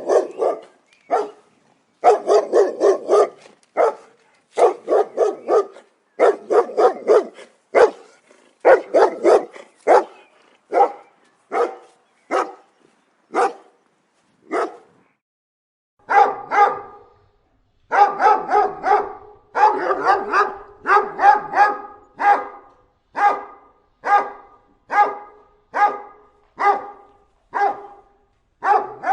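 Dogs barking angrily. In the first half the barks come in quick runs of several, with short silent gaps between runs. From about halfway they settle into single or paired barks roughly once a second.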